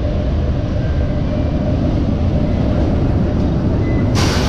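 EP1M electric locomotive running along the platform, a steady low rumble of the locomotive and its wheels on the rails. About four seconds in, as the locomotive draws alongside, a short sharp hiss cuts in.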